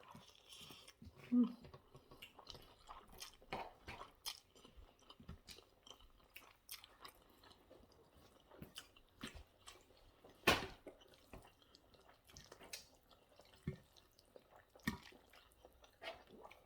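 Close-up chewing of spaghetti bolognese: irregular wet mouth smacks and clicks, with a louder smack about ten seconds in.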